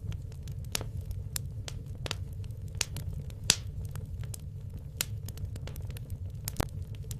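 Wood logs burning in a fireplace, crackling with irregular sharp pops over a low steady rumble of flames; one louder pop about halfway through.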